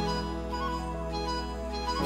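Instrumental background music with long held notes; a new chord comes in at the very end.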